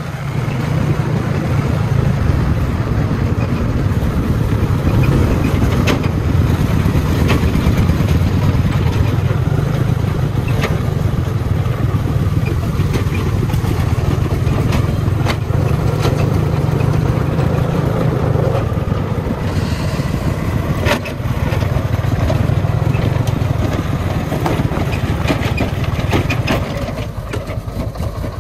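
Diesel engine of a homemade three-wheeled công nông truck running steadily, with scattered sharp knocks. It eases off briefly about twenty seconds in and gets quieter near the end.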